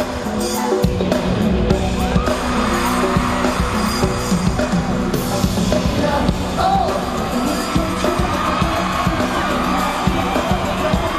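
Live pop music played loud through a concert sound system, with a heavy pounding beat and a singing voice, while the crowd screams and cheers over it.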